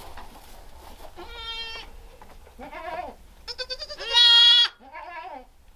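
Kiko goat kids bleating: four calls in quick succession. Two are high and level and two are lower and wavering, and the third is the longest and loudest.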